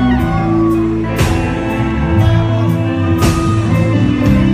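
Live rock band playing: electric bass, electric guitar and drum kit, with two loud accented hits about two seconds apart.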